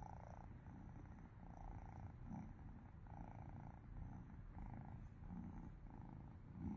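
Siberian kitten purring softly, in an even rhythm of swells about one every three-quarters of a second.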